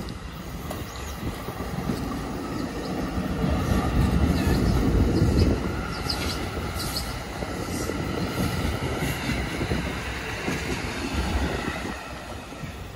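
NJ Transit Comet passenger coaches rolling past on the tracks: a steady rumble and clatter of steel wheels on rail, loudest about four to five seconds in, with a few short high squeals a little past the middle. The sound eases off near the end as the last cars go by.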